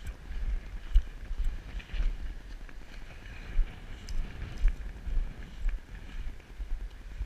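Wind buffeting a body-worn camera's microphone: a gusty, uneven low rumble with a strong gust about a second in, and a few faint ticks over it.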